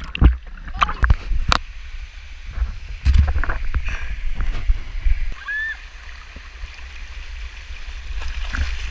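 Water splashing at a river-rock slide pool, with distant voices, a brief call about five and a half seconds in, and a steady wind rumble on the microphone.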